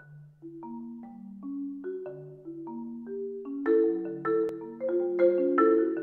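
Yamaha concert marimba played with four mallets: slow, sustained notes overlapping in the low and middle range, growing louder about halfway through.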